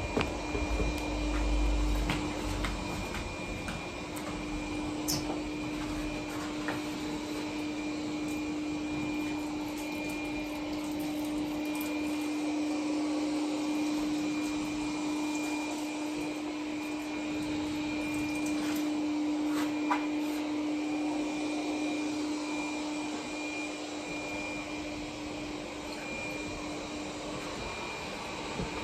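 Vacuum cleaner motor running steadily, a constant even hum, with a few faint knocks of things being handled.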